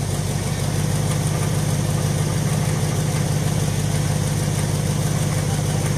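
1966 Ford Thunderbird's V8 idling steadily.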